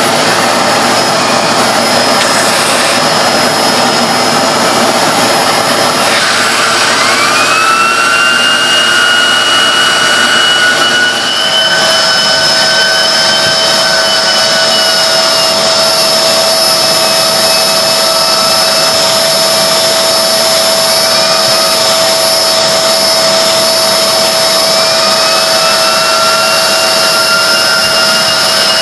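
Hoover Globe bagless vacuum cleaner running with a loud, high-pitched whine. Its pitch glides up about six seconds in and again near the end, and its tone shifts about eleven seconds in.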